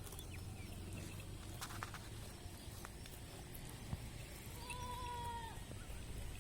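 A Black Bengal goat bleats once, a single drawn-out call about five seconds in.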